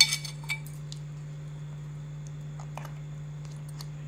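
Steel vessel clinking against the rim of a steel bowl as it is tipped to pour the tempering oil, with a sharp clink at the start and a lighter one about half a second later. Then a few faint ticks over a steady low hum.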